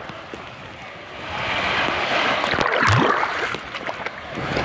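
Sea waves breaking and surf rushing close around the microphone, the wash swelling about a second in, with a sharp splash near the middle.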